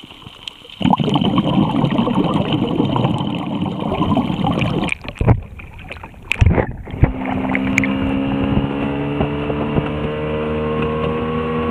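Rushing water noise, muffled with the camera under the surface, then a few splashes as it breaks the surface. After that a small boat's outboard motor runs steadily, its pitch rising slightly as the boat speeds up, with water rushing past the hull.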